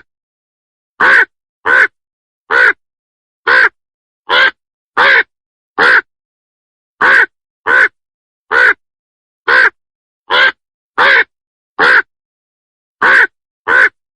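Crow cawing: short caws repeated about every three-quarters of a second, in runs of about seven with a slightly longer pause between runs.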